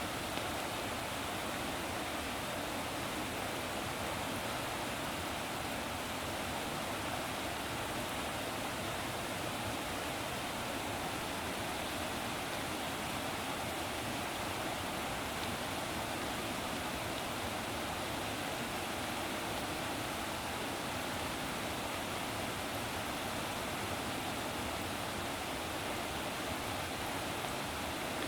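Steady rushing water, an even hiss with no swells or breaks.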